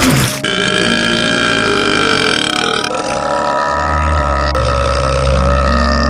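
A long, drawn-out cartoon burp sound effect, held at a steady pitch and shifting in tone twice, with a deep rumble joining it about two thirds of the way through.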